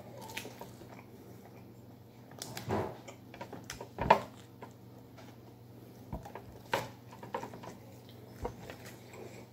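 Close-up mouth sounds of eating a Burger King Whopper: bites and chewing with a few scattered wet smacks and clicks, the loudest a bite about four seconds in. A steady low hum runs underneath.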